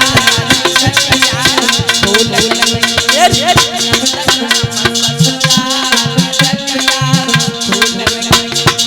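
Instrumental music interlude: a fast, steady rhythm of hand drums and shaker over a held low note, with a wavering melody line above.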